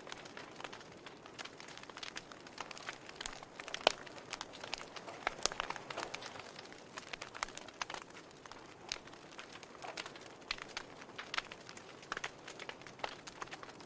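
Wood fire crackling in a fireplace: irregular sharp pops and snaps over a soft hiss, with one louder pop about four seconds in.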